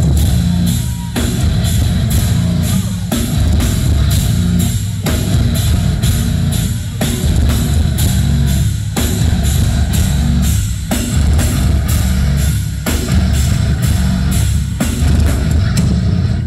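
Heavy rock band playing live and loud: distorted guitars and bass under drums with a steady cymbal beat, with a brief break in the riff about every two seconds.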